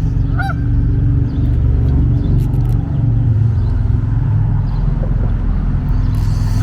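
Steady low rumble of road traffic. A goose honks once about half a second in and again at the very end.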